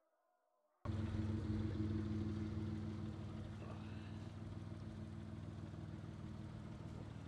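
A turbocharged car engine idling steadily. It comes in suddenly about a second in, after a moment of near silence.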